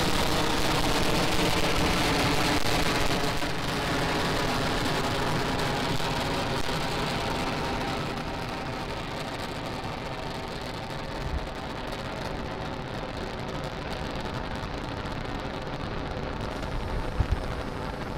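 Falcon 9 rocket's nine Merlin 1D first-stage engines during ascent: a steady rushing rumble that grows fainter and duller as the rocket climbs away, with a sharp double crack near the end.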